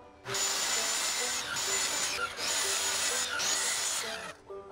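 A handheld power tool working into a wooden board, its motor stopping and starting several times in runs of one to two seconds, with a high whine that rises each time it spins up.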